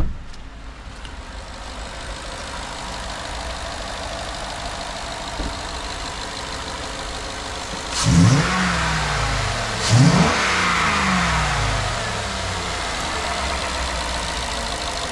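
2014 Ford F-150's V8 engine idling steadily with the hood open, revved twice about two seconds apart, each rev dropping back down to idle. A sharp thump at the very start.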